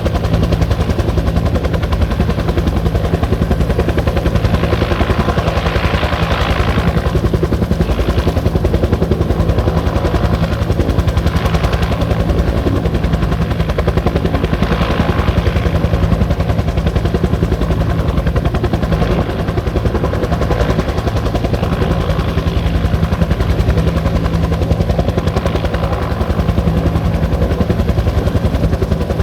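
Bell 205 helicopter running: the two-bladed main rotor beats in a fast, steady pulse over turbine noise, with the hiss swelling a few times, strongest about five to seven seconds in.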